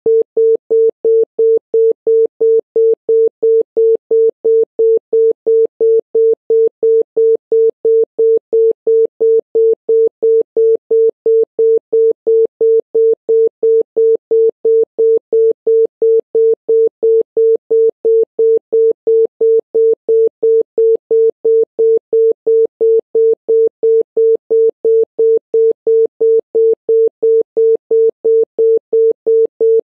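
Telephone busy tone, Romanian digital 'busy B': a single 450 Hz tone beeping rapidly and evenly, about three beeps a second (0.17 s on, 0.17 s off). It tells the caller that the called line is busy.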